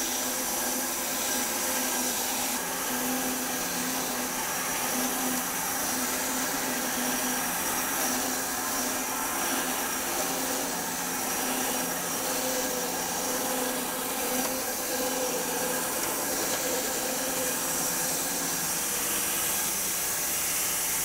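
Homemade bandsaw mill's electric motor and belt drive running steadily with the band blade sawing through a very wide cut in elm, a constant machine hum and whine over a steady hiss of cutting. The motor holds its speed under load without straining.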